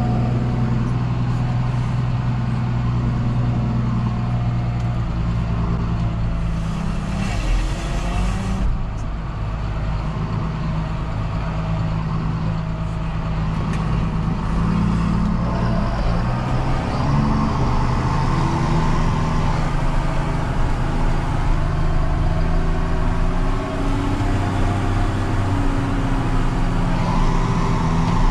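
John Deere 6930 tractor's six-cylinder diesel engine running steadily under load, pulling a Väderstad Cultus cultivator. About seven seconds in a brief hiss comes and the engine note shifts, then it settles back to a steady run.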